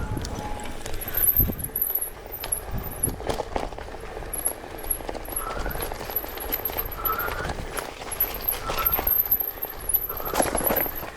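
Bicycle rolling over a dirt trail, rattling and knocking irregularly over bumps, with rumbling noise on the microphone throughout.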